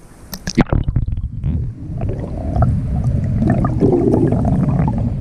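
Camera dipped into lake water: a few splashes as it breaks the surface about half a second in, then the muffled, low crackling rumble of water moving against the submerged camera housing.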